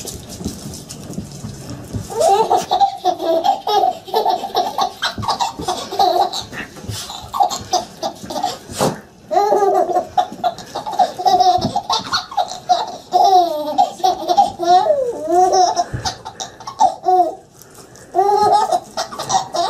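Baby laughing in repeated high-pitched bouts, with short pauses about nine seconds in and again near the end.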